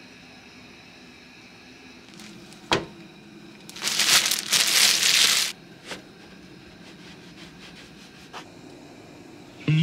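Kitchen handling sounds while preparing sliced white bread on a cutting board: a single sharp click, then a loud rustle about two seconds long, and later a couple of faint taps as a knife trims the crust.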